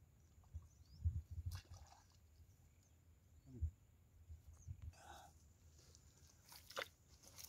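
Quiet open-air ambience of low, irregular rumbles with a few faint short chirps and soft clicks.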